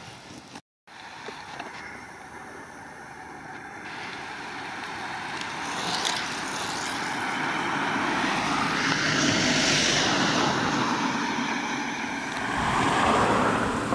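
Ambulance van driving past behind the race riders, its engine and tyre noise swelling to a peak about two thirds of the way through and then easing off, with another brief swell near the end.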